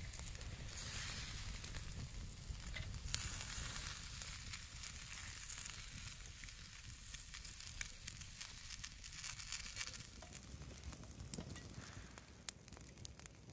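Marinated chicken and vegetables sizzling on a charcoal grill while melted butter is brushed over them, with scattered sharp crackles. The sizzle grows a little quieter in the last few seconds.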